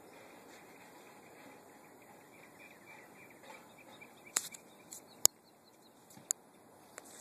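Quiet outdoor ambience with faint chirping, broken in the second half by several sharp clicks, the loudest about five seconds in.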